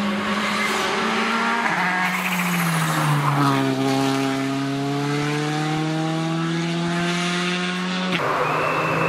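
Rally car engines at full stage pace: a steady engine note for the first couple of seconds, then one car's engine whose pitch drops and then climbs steadily as it slides through a bend and powers out. The sound cuts off abruptly near the end to another engine note.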